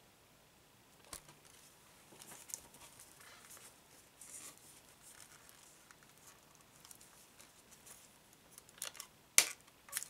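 Cellophane shrink wrap crinkling and tearing as it is peeled off a plastic CD jewel case. Near the end come a few sharp plastic clicks, the loudest about nine seconds in, as the case is snapped open.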